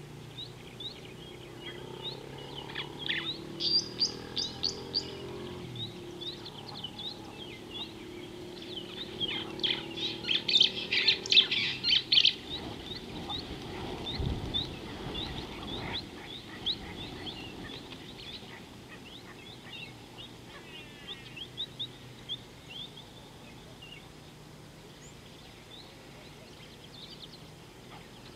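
Wild birds calling: many short, high chirps repeated throughout, with a dense, louder flurry of calls about ten seconds in.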